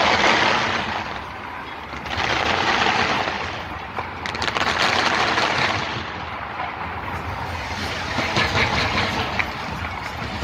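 Fireworks crackling and banging in rapid volleys. The sound comes in waves that swell and fade every couple of seconds.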